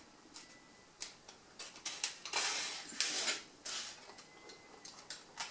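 Snap-off craft knife slitting brown packing tape on a polystyrene box: a series of short scrapes and clicks as the blade cuts and drags against the tape and foam, quiet at first and more frequent from about two seconds in.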